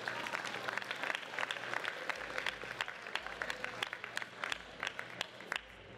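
Audience of students applauding, with many individual claps standing out, dying away near the end.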